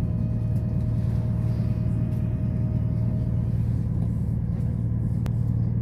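Steady low rumble inside a moving passenger train carriage: the train's running noise on the rails, with a single sharp click about five seconds in.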